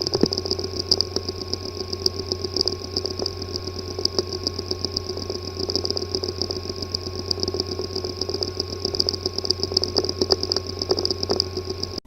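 Hard drive with a physically damaged disk assembly running, making a steady, rapid buzzing rattle over a constant hum, the kind of weird noise that marks internal mechanical damage. The sound cuts off suddenly at the end.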